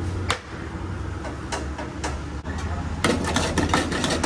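Metal kitchen utensils clinking and tapping against pots and a griddle over a steady low hum. The clinks are scattered at first and come thick and fast from about three seconds in.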